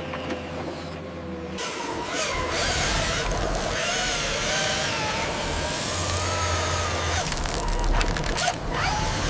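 Orange crawler excavator working in sand: a steady hydraulic hum, joined about a second and a half in by a louder, rougher noise with a wavering whine as it clears the top layer.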